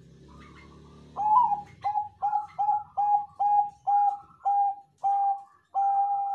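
Zebra dove (Bangkok-strain perkutut) singing its cooing song. About a second in, it gives a run of about ten short, clipped coos, two or three a second, and ends on a longer held note.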